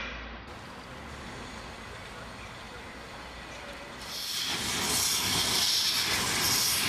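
Small steam tank locomotive: a low steady hiss and rumble at first, then from about four seconds in a loud hiss of steam escaping from its open cylinder drain cocks as it moves off.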